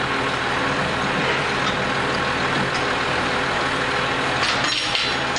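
Delivery truck's engine idling steadily, with a brief clatter near the end.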